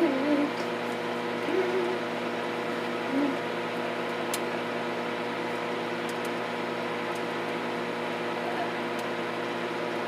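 Microwave oven running with a steady hum while heating food.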